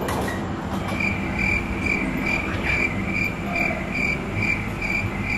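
Cricket chirping, a short high chirp repeating about twice a second, starting about a second in, over a low steady background hum.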